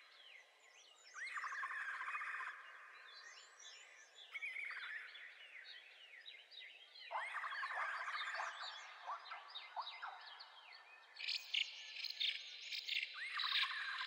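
Several songbirds singing over one another, in short chirps, rising and falling whistled notes and quick trills that come and go in bursts, with a run of sharp chirps near the end.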